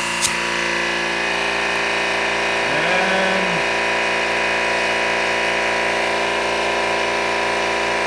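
Air compressor running steadily while a strapped ATV tire is overpressurized to seat its beads, with one sharp click just after the start.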